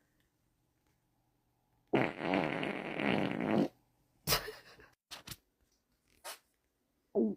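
A person farting: one long, buzzy fart of almost two seconds, starting about two seconds in, followed by a few sharp clicks.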